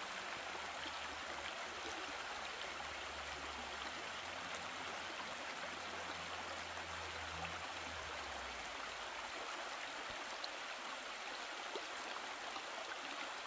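Shallow creek flowing over a bed of rocks and stones: a steady rush of running water.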